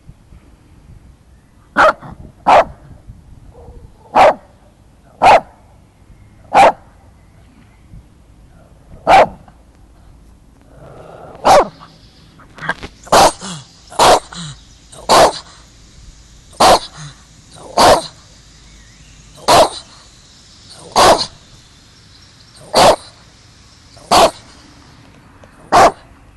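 Shih Tzu barking at the person filming it: single short, sharp barks about a second apart, with a few seconds' pause partway through, then a steady string of barks.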